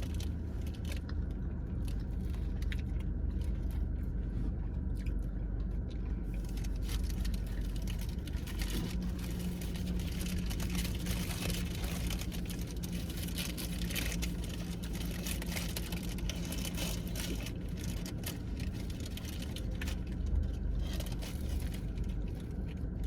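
Steady low rumble and hum of a car interior, with scattered small clicks and rustles from handling food.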